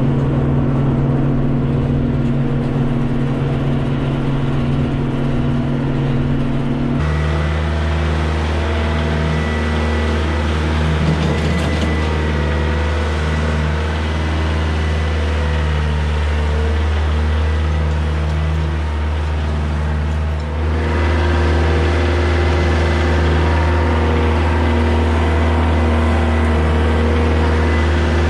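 Kioti compact tractor's diesel engine running steadily while the front loader hauls and dumps soil. Its tone changes abruptly twice, about 7 and 20 seconds in.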